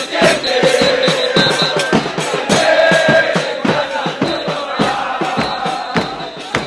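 Large crowd of Argentina football fans singing a chant together, over a quick, steady beat of sharp hits.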